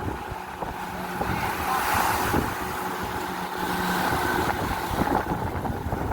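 A fishing boat's engine running at a steady pitch under heavy wind noise on the microphone, with occasional knocks.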